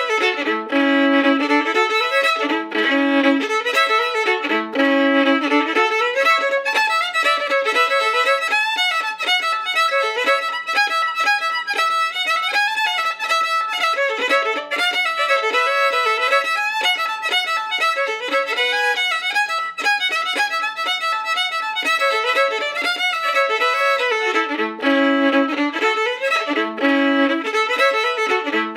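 Background fiddle music: a folk fiddle tune with a quick run of notes.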